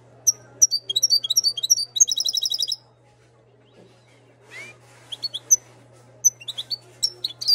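Moroccan goldfinch singing: a fast run of high twittering notes for about two and a half seconds, then after a pause a looser string of single chirps, over a steady low hum.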